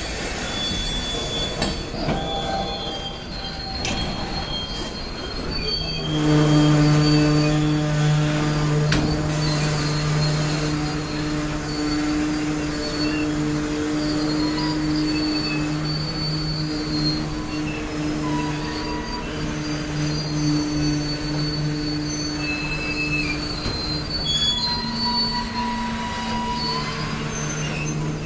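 Freight train cars, boxcars then tank cars, rolling slowly past with their wheels squealing on the rails in thin, high, on-and-off squeals. From about six seconds in, a steady low hum joins and holds, shifting pitch a little near the end.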